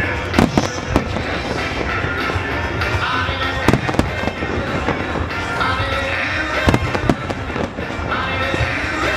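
Fireworks bursting in a rapid string of sharp bangs and crackles over a steady bed of music, with the heaviest booms about half a second, nearly four seconds and nearly seven seconds in.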